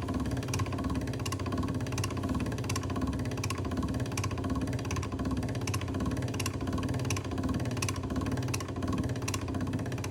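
Motorized noodle-pressing machine running steadily, a motor hum with a sharp regular click about every 0.7 seconds.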